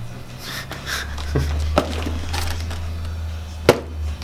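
A ballpoint pen jabbing and scraping at the packing tape on a cardboard box, with scattered taps and rustles and a sharp knock near the end. The pen is too blunt to pierce the tape. A steady low hum sits underneath from about a second in.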